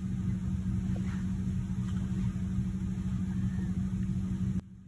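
A steady low machine hum, like a small fan or motor running, that drops away suddenly near the end to a much fainter hum.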